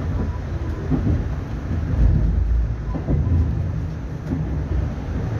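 Steady low rumble of a moving train heard from on board: running noise of the wheels rolling on the rails.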